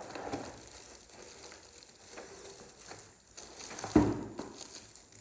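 Rustling and handling of paper packaging, with a single sharp knock about four seconds in.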